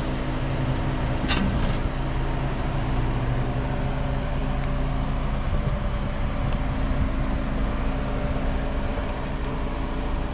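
Jeep engine running steadily at low revs as it crawls slowly over rocks, with a low rumble underneath. Two sharp clicks come close together about a second and a half in.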